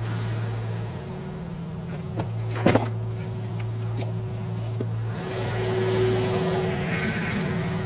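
Tractor engine running at a steady speed, a low even drone, with a sharp double knock about a third of the way in and a hissier patch in the second half.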